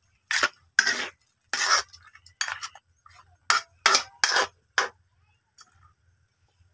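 Metal ladle scraping and clanking against a wok while pork pieces are stirred and turned, about nine sharp strokes in quick succession that stop about five seconds in.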